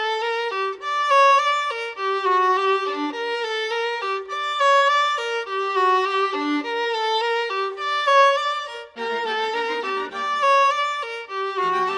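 Background music led by a violin playing a melody of short notes; about three quarters of the way through, lower string notes join in.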